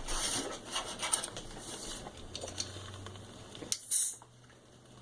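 Rubbing and scraping of cookware and food at the pan, in quick, uneven strokes over the first two seconds. A short, loud, hissy burst comes about four seconds in.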